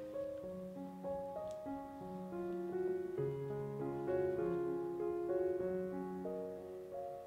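Piano music: a melody of separate held notes over lower chords.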